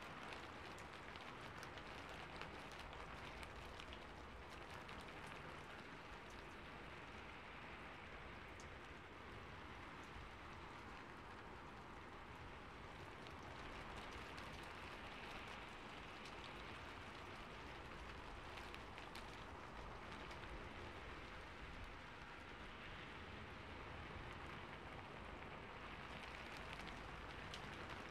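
Steady rainfall: an even wash of rain noise flecked with many small drop ticks, unchanging throughout.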